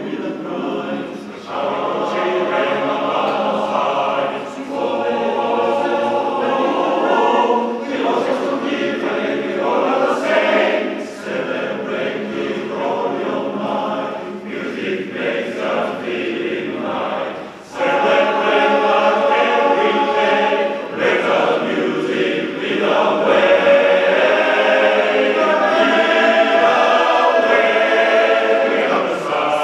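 Men's barbershop chorus singing a cappella in close four-part harmony, sustained chords in phrases with short breaks, swelling louder for the last ten seconds or so.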